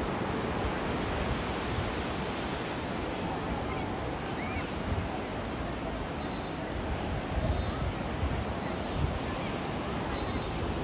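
Surf washing on a sandy beach: a steady, even rush of breaking waves.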